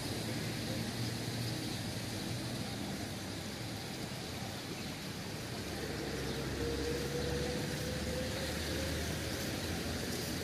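Steady background noise of road vehicles. From about six seconds in, an engine hum grows stronger, with a faint, slowly rising whine until about nine seconds in.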